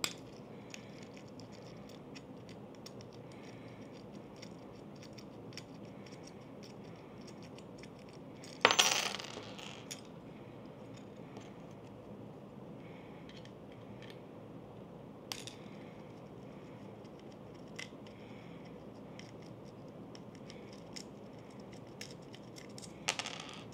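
Small metal camera-cage parts and screws being handled on a wooden desk: light clicks and taps throughout. About nine seconds in, a small metal piece drops onto the desk with a loud clink that rings for about a second. There is a smaller clink a few seconds later and a short clatter near the end.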